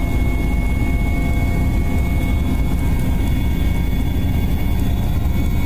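Helicopter cabin noise in flight: a steady, loud low rotor and engine rumble with a thin, steady high turbine whine.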